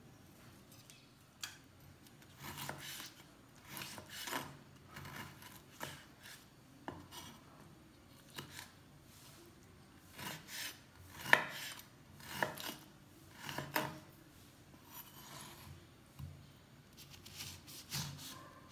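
Chef's knife cutting kozhumichai citrons into wedges on a wooden cutting board: irregular strokes through the thick rind, each a short rasp, some ending in a sharp knock of the blade on the board, the loudest about eleven seconds in.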